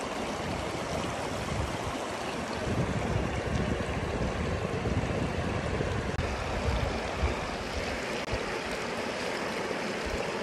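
Shallow, rocky stream running with a steady rush of water, with uneven low rumbling underneath.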